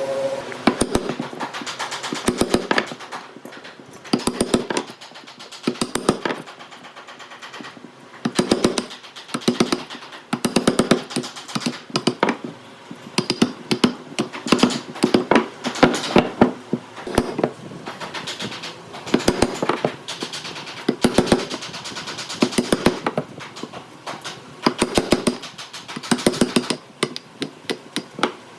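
Rapid clicking knocks in bursts of about a second, with short pauses between them, from hand work on wood.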